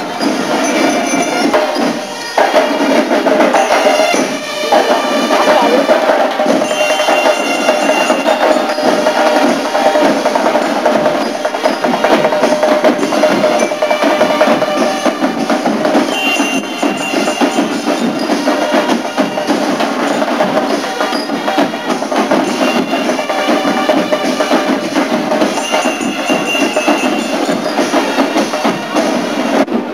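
Marching band playing: a drum line of snare and bass drums with cymbals, and bell lyres ringing out short bright notes over it.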